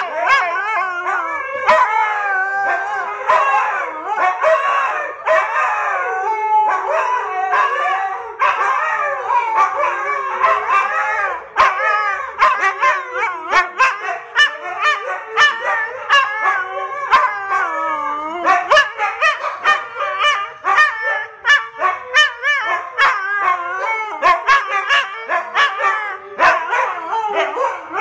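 Two husky-type dogs howling together, their wavering howls overlapping. From about eleven seconds in, the howling breaks up into a run of quick sharp barks and yips traded back and forth, still mixed with short howls.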